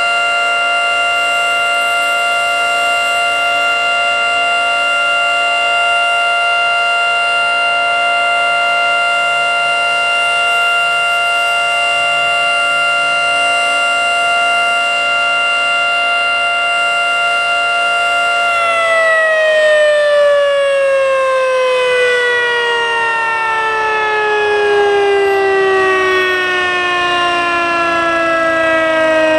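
Federal Signal 3T22 outdoor warning siren sounding its steady alert tone, several pitches at once. About two-thirds of the way through, the pitch starts to fall steadily as the siren winds down at the end of its alert cycle.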